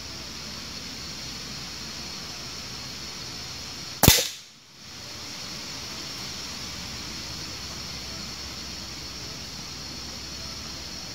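A single sharp rifle shot about four seconds in, over a steady high-pitched background hum that briefly drops away just after the crack.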